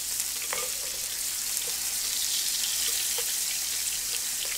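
Frozen pork belly sizzling on an electric grill pan, a steady hiss, with a few light clicks of metal tongs against the meat and pan.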